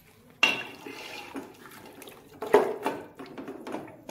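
A spoon stirring wet, spice-coated mutton chops and water in an aluminium pressure cooker, sloshing and scraping with a few sharp knocks against the pot: one about half a second in, one after two and a half seconds, and one at the end.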